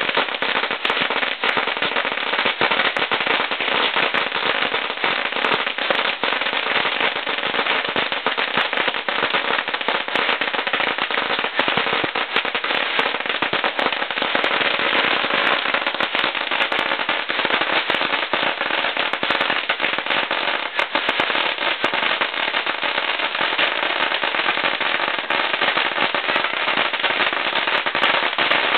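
A huge firecracker string (32,000 firecrackers laid out in rows) going off in one dense, unbroken rattle of small bangs at a steady, loud level.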